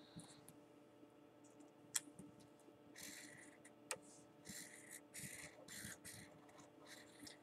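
Black felt-tip marker stroking across paper: faint, short scratchy squeaks repeating several times a second from about three seconds in, after two sharp clicks, over a steady low hum.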